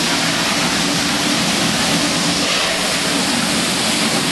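Steady rush of falling and spraying water from the Mirage volcano's fountain jets and cascades.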